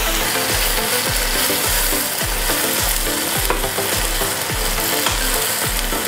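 Sambal sauce of onion, garlic and chilli paste sizzling and simmering in a small frying pan, with a spatula stirring and scraping the pan. A steady beat of background music runs under it.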